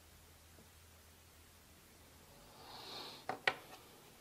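A short scrape as the leather cardholder is handled with a small tool, then two sharp clicks close together.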